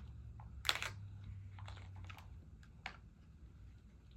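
Small white stones clicking as they are handled and knocked against a toy bulldozer: a few scattered light clicks, the loudest about a second in.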